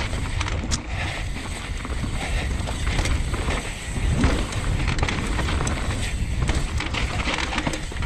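Transition Sentinel mountain bike being ridden on a dry dirt trail: heavy wind rumble on the microphone over tyres rolling on the dirt, with scattered sharp clacks and rattles from the bike.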